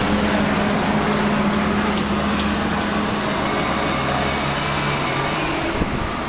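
Big wheel ride: a steady machinery hum over a loud, even rushing noise. The hum drops to a lower pitch about four seconds in and fades out near the end.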